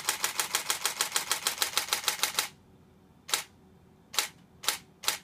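Nikon D750 DSLR shutter firing in a fast continuous burst, about six or seven shots a second, for about two and a half seconds. Then, with the buffer full, it pauses and fires single shots about half a second apart as images are written to the memory card.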